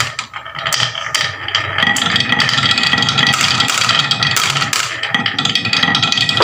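Marbles rolling and clattering down a wooden HABA marble run, a dense run of quick clicks and rattles with some ringing.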